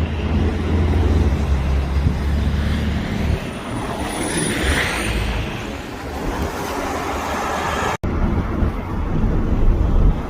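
Highway traffic noise: a vehicle engine's low rumble that eases after about three seconds, under a steady rushing noise that swells around the middle. The sound drops out for an instant about eight seconds in.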